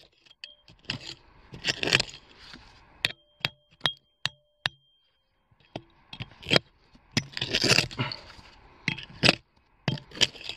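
Small hand pick scraping and chopping into hard, stony dump soil: gritty scrapes and sharp knocks and clinks of the blade on stones and debris, pausing for a couple of seconds midway.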